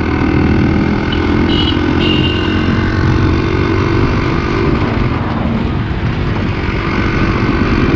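Yamaha RX100's 98 cc two-stroke single-cylinder engine running steadily while the bike is ridden along at an even speed.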